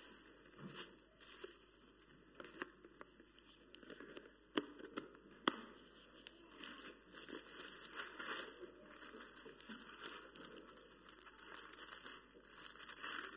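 Faint crinkling and rustling of packaging as bread is packed away, with a few sharp knocks, the loudest about four and a half and five and a half seconds in.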